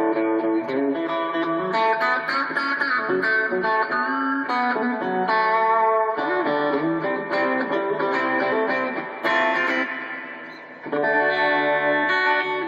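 Hadean EG-462 Stratocaster-style electric guitar on its bridge pickup, played clean through a small Roland Micro-Cube amplifier: chords and single-note lines. About ten seconds in, a chord is left to ring and fade before the playing starts again.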